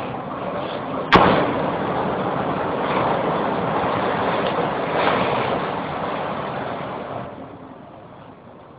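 Wind and heavy sea rushing steadily against a bulk carrier ploughing through rough water, with one sharp bang about a second in. The rush dies down over the last couple of seconds.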